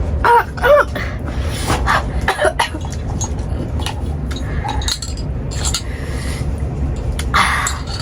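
Brief wordless vocal sounds and scattered clicks over a steady low hum, as people finish eating spicy momos.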